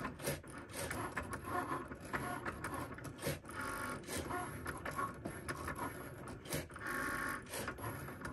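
Cricut Maker cutting machine running a test cut in white cardstock: its motors whir in short stop-and-start moves with small clicks, and a stronger, higher whine comes twice, about three and a half and seven seconds in.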